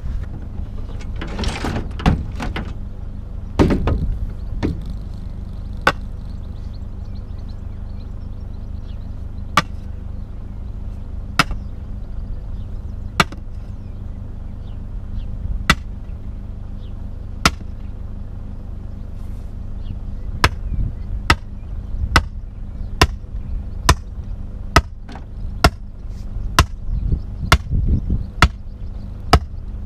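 Sledgehammer blows on the top of a wooden fence post, driving it into the ground: sharp single strikes, about two seconds apart at first, quickening to nearly one a second about two-thirds of the way in. A few irregular knocks and rustles in the first few seconds.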